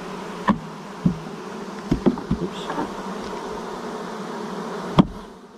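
Honeybees of a caught swarm buzzing steadily, with a few knocks on a wooden swarm trap box and one loud thump near the end as the box is jarred to shake the bees to its bottom.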